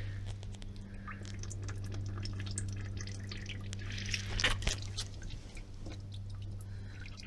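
Coolant and flush water draining from the disconnected bottom radiator hose into a plastic bucket: irregular drips and a thin trickle. A steady low hum runs underneath.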